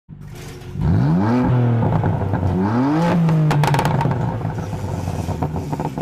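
Car engine revved twice, its pitch climbing each time, then holding a steady running note that slowly fades. A short clatter comes about three and a half seconds in.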